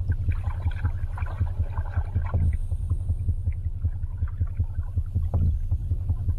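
Underwater river ambience: a steady, fluttering low rumble with scattered gurgles and clicks of water and bubbles.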